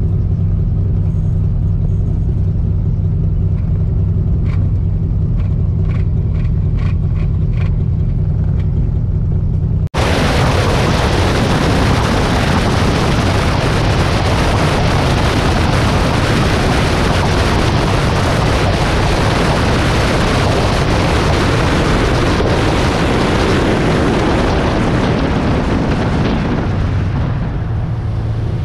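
A 1979 Mooney M20K's piston engine and propeller hum steadily in the cabin, with a run of light clicks partway through. After an abrupt cut, a loud rush of wind and road noise with the engine of a supercharged 1973 Austin Mini van at motorway speed takes over, easing off near the end as the engine hum comes through again.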